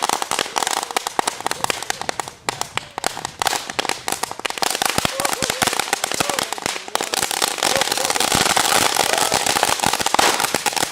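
Firecrackers packed inside a stereo receiver going off in a rapid, continuous string of crackling bangs. About seven seconds in they grow denser and louder.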